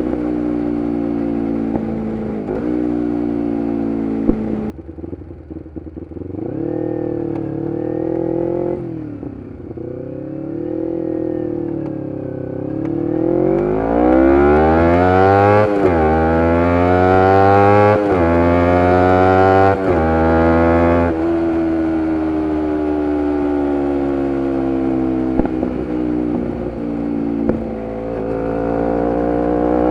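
2011 Kawasaki Ninja 250R SE parallel-twin engine through a full Graves race exhaust. The revs drop and hover low for several seconds. About halfway through, the bike accelerates hard, revving up through several gear changes with a sudden dip in pitch at each shift, then settles into a steady cruise and starts revving up again near the end.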